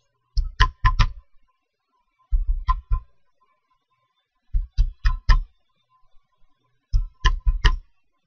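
Computer keyboard keys being pressed in four quick runs of four keystrokes each, spaced about two seconds apart, the rhythm of a 16-digit card number being typed in groups of four.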